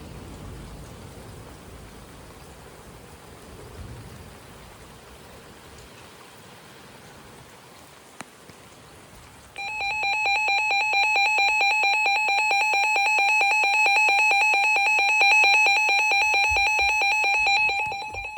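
Rain falls steadily for the first half. Then a Midland weather radio's alert alarm sounds, a loud, rapidly pulsing electronic beep that signals an incoming warning. It cuts off near the end.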